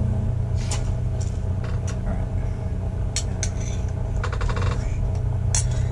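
A steady low mechanical hum throughout, with a metal spoon clinking and scraping in a metal pot. There is a quick run of clinks a little past four seconds in.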